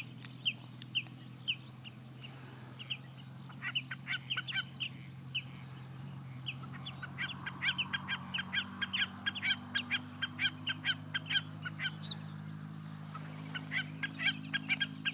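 Common snipe calling: its rhythmic 'chip-per, chip-per' song, short sharp notes repeated rapidly in several long runs, over a faint steady low hum.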